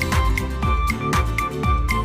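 Background music with an electronic beat: a kick drum about twice a second under a short repeating melody.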